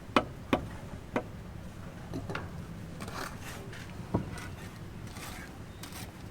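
Sharp knocks at irregular intervals, like blows on a hard surface: three in the first second or so, then single knocks a little after two seconds and past four seconds, over steady low background noise.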